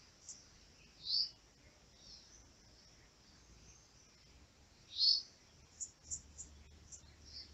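Faint bird chirps over a quiet background: a short high chirp about a second in, another about five seconds in, and a few brief high chips near the end.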